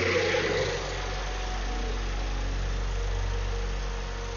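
Small pressure washer engine running steadily with the choke open, just after starting.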